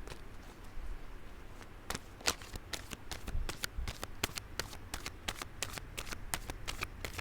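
A deck of tarot cards being shuffled by hand: a quick run of crisp card snaps, sparse at first and coming thick and fast from about two seconds in.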